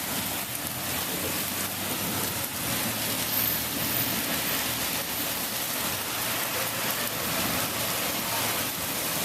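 Heavy thunderstorm rain mixed with small hailstones, half-penny to dime size, falling in a steady, even hiss.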